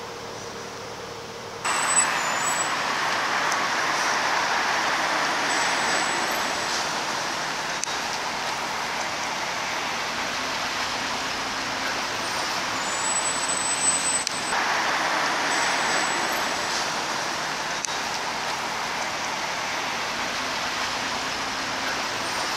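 Road traffic: a steady noise of vehicles passing on a road, which starts abruptly and swells twice as vehicles go by.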